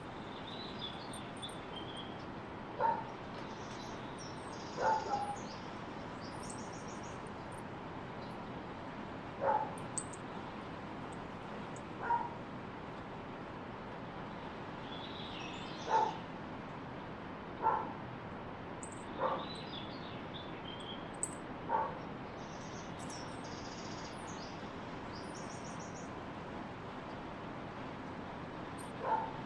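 Dog giving short, soft yips while play-wrestling with a cat, about nine of them spread out a few seconds apart over a steady background hiss, with faint high chirps now and then.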